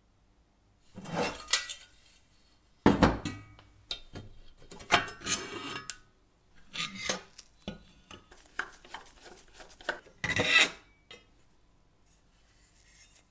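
Metal stove parts clattering and scraping in several separate bursts. There is a heavy knock about three seconds in, rubbing and small clinks in the middle, and a loud rasping scrape near the end.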